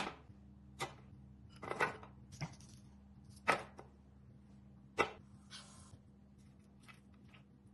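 A few scattered kitchen knocks and clinks, with two brief scrapes, over a faint steady hum.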